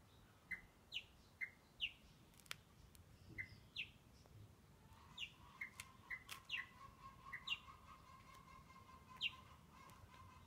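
Faint small-bird chirping: short, quickly falling chirps repeated irregularly, with a faint steady tone joining about halfway through.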